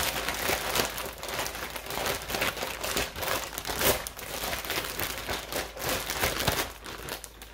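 Plastic zip-top bag crinkling continuously, with many sharp crackles, as it is shaken and squeezed to coat buttermilk-soaked chicken pieces in seasoned flour.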